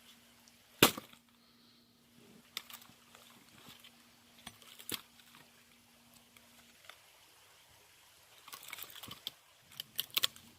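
An axe strikes an oak firewood log once, about a second in, with a sharp crack, followed by scattered lighter knocks of wood, and a cluster of small knocks and clatter near the end.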